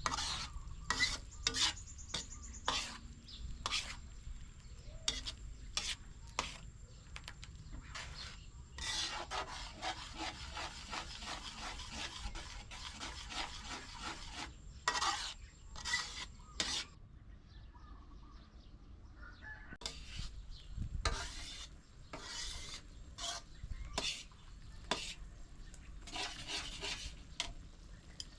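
Kitchen food-preparation sounds: repeated short scraping and stirring strokes of a utensil against a bowl or pan, with a longer run of steady scraping a third of the way in and a quieter pause past the middle.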